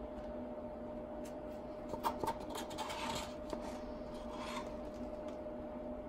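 Wooden stir stick scraping and tapping lightly against the resin-coated edge of an MDF heart, in short scrapes and a few clicks over a few seconds, the sharpest click about two seconds in. A steady low hum runs underneath.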